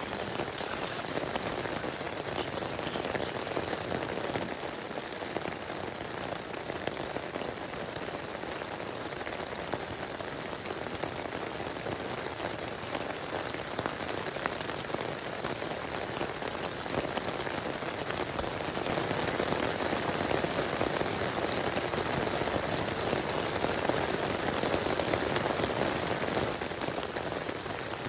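Steady rain, heard at first on the tent fabric; it grows somewhat louder about two-thirds of the way through.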